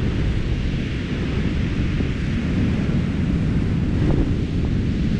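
Wind blowing across the microphone: a steady, loud low rumble with a fainter hiss above it.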